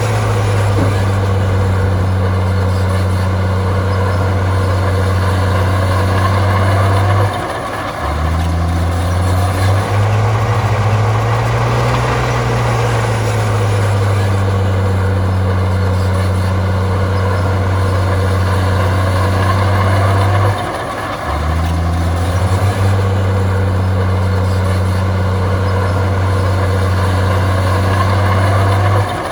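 Heavy diesel engine of earthmoving machinery running hard and steady, its engine speed dipping briefly and recovering twice, about a third of the way in and two-thirds of the way in, and rising and falling once between.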